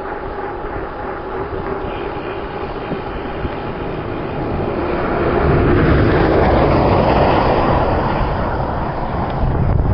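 Steady rushing of wind and road noise while cycling along a highway, growing louder about halfway through.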